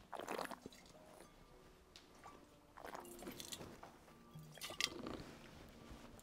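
Wine tasters slurping a white Sauvignon Blanc–Sémillon, drawing air through the wine in the mouth to aerate it: a few short wet slurps, a couple of seconds apart.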